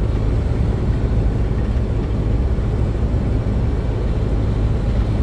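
Steady low rumble of a vehicle being driven at speed on a paved highway: engine and tyre noise with no changes.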